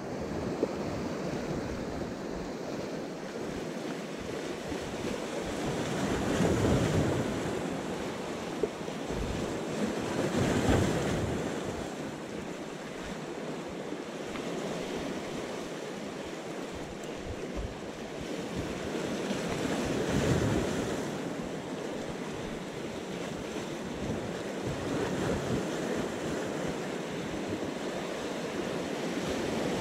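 Sea waves washing and breaking against concrete breakwater blocks, the surf swelling louder every several seconds as each wave comes in. Wind buffets the microphone with a choppy low rumble.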